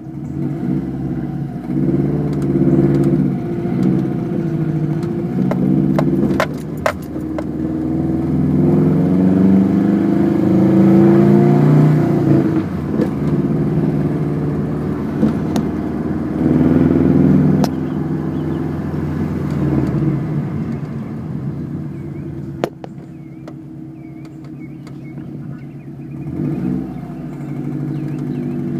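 2006 Subaru WRX's 2.5-litre turbocharged flat-four (EJ255) running, its revs rising and falling, with a few sharp clicks. The owner is chasing a fairly loud tapping around 1500 RPM under light load that he suspects is rod knock, on an engine that burns a lot of oil and may have been run low on oil.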